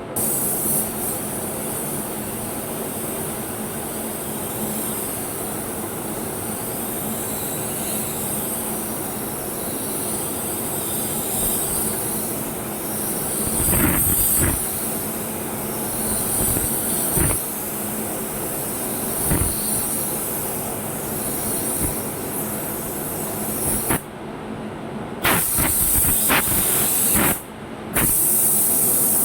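Compressed-air paint spray gun hissing steadily. The air cuts off twice near the end as the trigger is released, and a few short knocks sound about halfway through.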